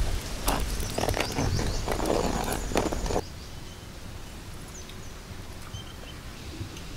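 Long-handled ladle stirring thick, cooking pearl millet porridge in a clay pot: scraping against the pot with knocks and sloshing. It stops suddenly about three seconds in. After that comes a low, steady outdoor background with a few brief high chirps.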